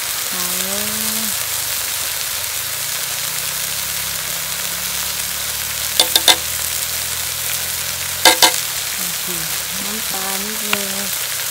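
Food sizzling steadily in a hot pan, with quick metallic clinks of a stirring utensil against the pan: three about six seconds in and two more a couple of seconds later.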